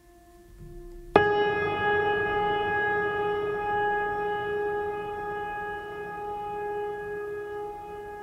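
Dramatic background music: a soft held drone, then about a second in a sudden loud hit that rings on as a long sustained tone, slowly fading.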